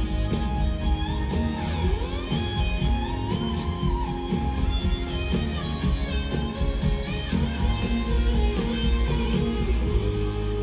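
Live country band playing loudly: an electric guitar lead with bent notes over drums, bass and strummed guitars. About ten seconds in the drums stop and the band holds a ringing final chord.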